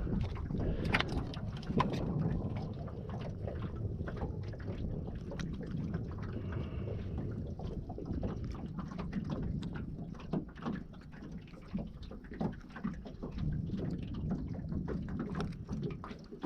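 Steady low rumble of wind and water at the microphone, with many small sharp clicks and taps throughout.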